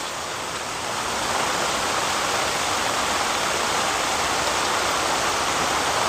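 Steady rain falling, a little louder from about a second in.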